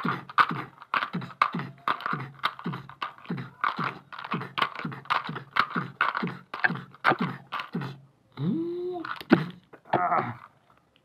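A man's voice making rapid mouth sound effects for a toy fight, short grunting bursts about three a second, with a longer growl that rises and falls near the end. There is a sharp knock about nine seconds in.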